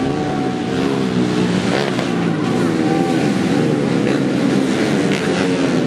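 Several modified 110cc four-stroke underbone (bebek) racing motorcycle engines, revving up and down over one another as the bikes race.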